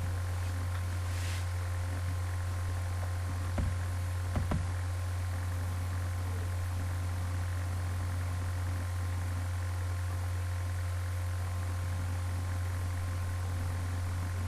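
Steady low electrical hum over a background hiss, with a couple of faint clicks about four seconds in.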